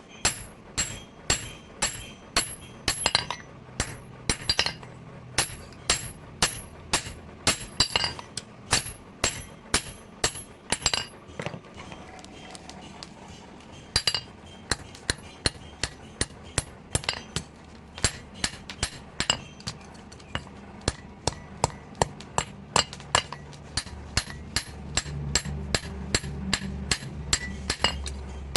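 Hand hammer forging steel from a tractor bearing, striking in a steady rhythm of about two to three blows a second, each blow with a ringing metallic clink. The hammering pauses briefly around the middle, then resumes, and a low hum comes in near the end.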